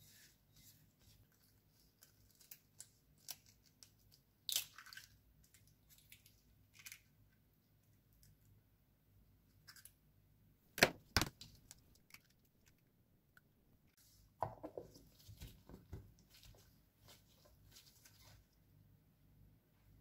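Quiet kitchen handling while eggs are cracked and separated by gloved hands: scattered soft clicks of eggshell and plastic. The loudest is a pair of sharp taps about eleven seconds in, an eggshell knocked against a container rim to crack it, followed by a few seconds of small clicks and rustling.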